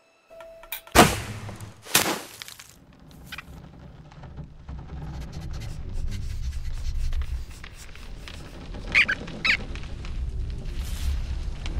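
Cartoon sound effects: two sharp swishes or snaps about a second apart near the start, then a low rumble that swells, with two short high squeaks near the end.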